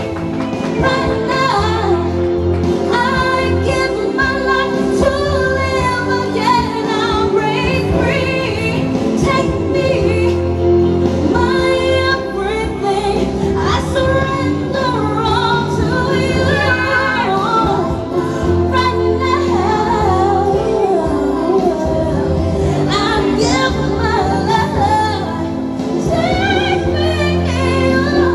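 A woman singing into a handheld microphone over instrumental music, the voice held and bent through long sung phrases.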